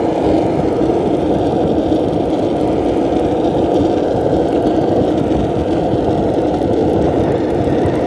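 Skateboard wheels rolling steadily over asphalt, a continuous rumble.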